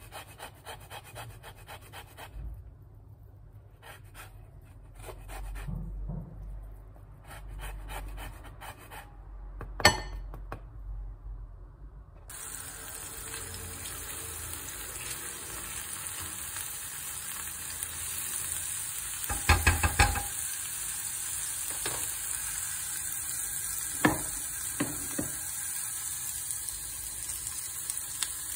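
Lemon zest rasped on a metal rasp grater in short scraping strokes, with a sharp knock about ten seconds in. From about twelve seconds in, oil sizzles steadily in a frying pan while a silicone spatula stirs and knocks against it, loudest around twenty seconds.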